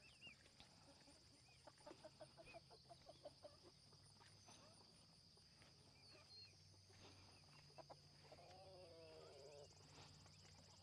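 Faint chickens clucking: a quick run of clucks about two seconds in and a longer wavering call near the end, barely above near silence.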